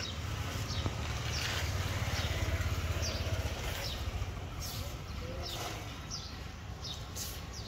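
Small birds chirping in short, high, down-sliding calls repeated every second or so, over a steady low rumble.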